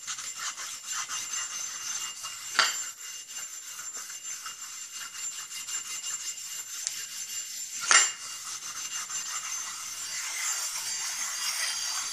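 Steel ring gear being lapped back and forth on a Japanese whetstone wetted with alcohol, a steady scraping rasp that grinds its high spots flat. Two sharp knocks of metal on stone come about two and a half seconds and eight seconds in.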